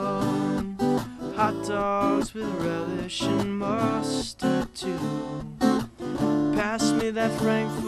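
Acoustic guitar strummed, with a melody line over it.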